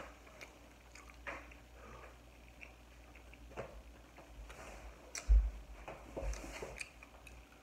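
Close-miked chewing with wet mouth smacks and small clicks from someone eating. A single low thump about five seconds in.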